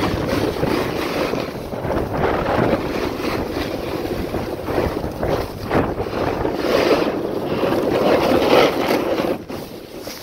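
Wind rushing over the camera microphone during a fast downhill ride, mixed with the hiss and scrape of sliding on packed snow, swelling and easing with the turns. The level drops sharply about nine seconds in as the ride slows.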